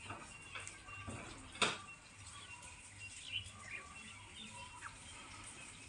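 Small birds chirping faintly here and there over a low hum, with one sharp click about a second and a half in.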